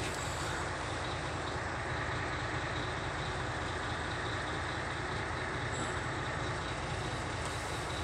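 Steady rumble and hiss of a vehicle engine running in the background, even and unchanging throughout.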